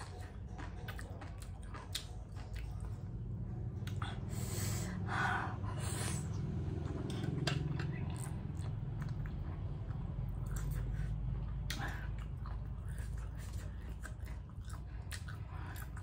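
A person chewing and biting steamed squid tentacles, close to the microphone, with many short mouth clicks over a steady low hum.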